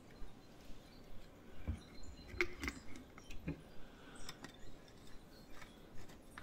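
Quiet scattered clicks and taps of handling as a wire whisk packed with stainless steel scrubbers is slid through a plastic lid and fitted into a glass mason jar.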